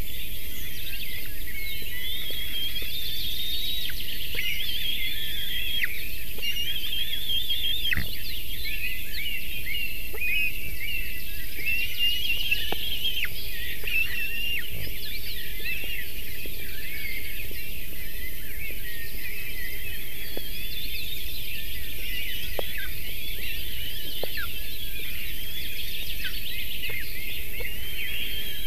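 Many wild songbirds singing at once in the surrounding forest: overlapping chirps and warbling phrases, with a steady high hiss and a few faint clicks.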